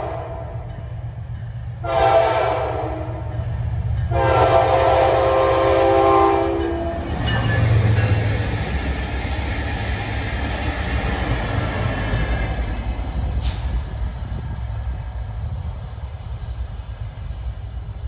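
Horn of new Wabtec ES30ACi diesel-electric locomotives, sounded as a short blast about two seconds in and a longer blast from about four to seven seconds. Under it runs a steady low rumble of the locomotives' engines and wheels, which carries on alone after the horn stops.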